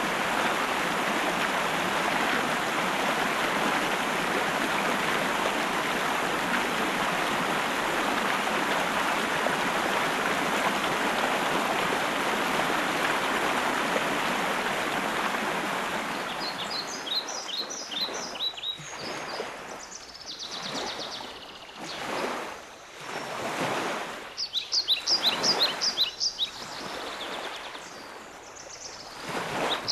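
Steady rushing of water; about halfway through it gives way to water surges that swell and fade every couple of seconds. Over these, a songbird sings runs of short, high repeated notes, about four a second, three times.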